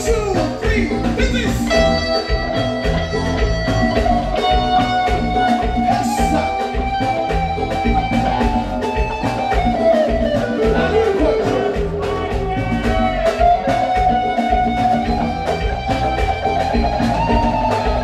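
Live band playing, led by an electric guitar solo of long held notes that slide and bend in pitch, over the band's rhythmic bass and drums.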